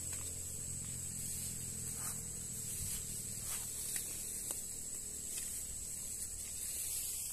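A steady high-pitched insect drone, with a few faint snaps and rustles of footsteps moving through leafy undergrowth.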